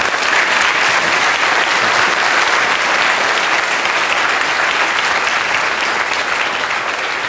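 Lecture-theatre audience applauding steadily, fading a little near the end.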